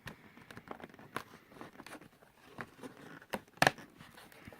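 Cardboard door of a chocolate advent calendar being picked and torn open by hand, with scattered crackles and rustling and a sharp snap about three and a half seconds in.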